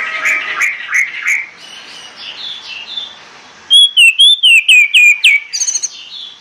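Orange-headed thrush singing: soft, twittering warbled notes in the first second or so, then, just under four seconds in, a loud phrase of about eight clear whistled notes that sweep down and up, ending in a quick run of higher notes.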